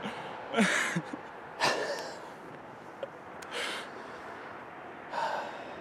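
A hunter breathing heavily close to the microphone: four loud, gasping breaths one to two seconds apart, breathless with excitement just after shooting a buck.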